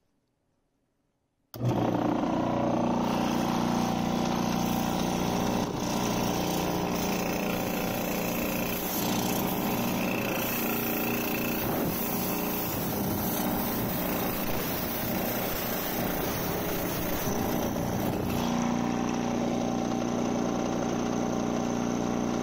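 Sears 500 paint sprayer compressor's 1/2 HP electric motor and pump switching on about a second and a half in and running steadily: an even hum with a hiss over it.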